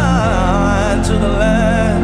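Slow, atmospheric worship music: low held notes sustained underneath a wavering, vibrato-laden melody line that slides downward about a quarter second in, then holds.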